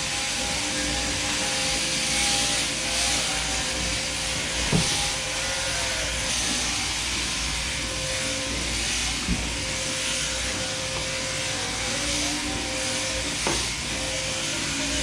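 Sheep-shearing handpiece running with a steady buzz and hiss, with three sharp knocks.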